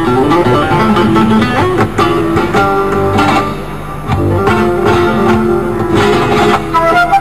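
Live flamenco fusion ensemble playing: two acoustic guitars picking a quick melody over a fretless bass line and cajón.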